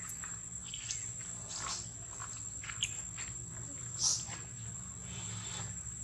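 Baby long-tailed macaques giving a few brief high-pitched squeaks, the loudest about four seconds in, over a steady high whine in the background.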